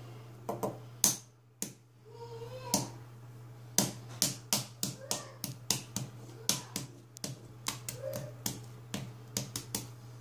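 Hard-boiled egg pressed and rolled on a cutting board, its shell cracking in a run of sharp clicks, about two a second through the second half. A steady low hum runs underneath.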